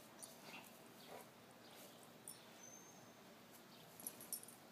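Near silence with faint rustles and soft clicks from a golden retriever–basset hound mix mouthing a toy in the grass. There is a brief high chirp about two and a half seconds in and a cluster of faint crackles near the end.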